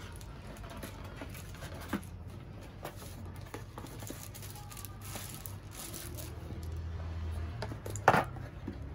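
Plastic wrapping and a cardboard microphone box rustling and crinkling as they are handled and opened, with scattered small clicks and one sharp knock near the end.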